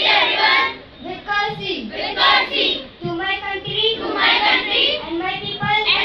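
A group of children reciting a pledge together in unison, in a sing-song chant, with short breaks between phrases.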